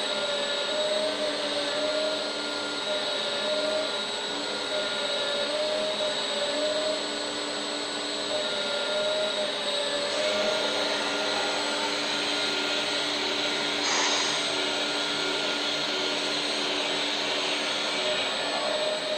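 Electric-driven hydraulic pump of a 1/14 scale RC excavator running with a steady whine and hiss, its pitch wavering up and down as the hydraulics take and release load. A short burst of hiss about fourteen seconds in.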